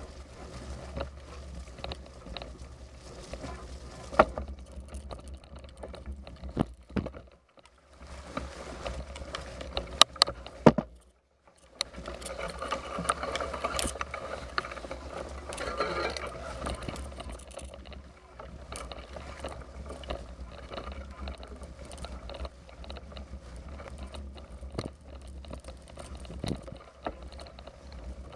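Bicycle ridden over rough woodland ground, rattling and clicking as it jolts, with a few sharp knocks around four seconds in and again around ten seconds in, over a steady low rumble.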